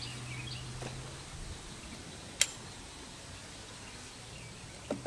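Quiet outdoor ambience with faint bird and insect chirps and a low hum in the first second. One sharp click about two and a half seconds in.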